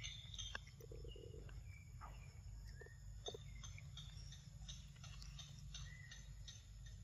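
Faint sounds of a macaque eating ripe mango: small wet clicks and smacks of chewing, with a few short high chirps scattered through, over a low steady rumble.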